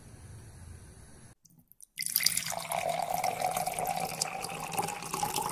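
Steady crackling hiss of a pan heating on a gas stove. It starts abruptly about two seconds in, after a brief silence; before that there is only a faint low background.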